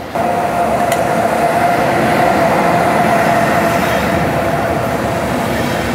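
Deutsche Bahn Intercity train moving along a station platform: a steady rumble of the coaches with a steady high-pitched whine over it.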